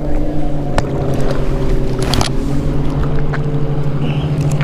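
Motorboat engine running with a steady hum, with a few light clicks along the way.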